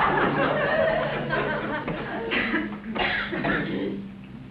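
Studio audience laughter after a joke, dying away over the first second or so, followed by two short sharp bursts that may be coughs or a last laugh, over a steady low hum.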